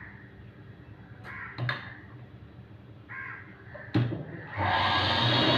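A few short, harsh bird calls, then a click about four seconds in. Shortly after, the electric motor of a sewing machine starts running as it stitches a fabric strip, and this is the loudest sound, at the end.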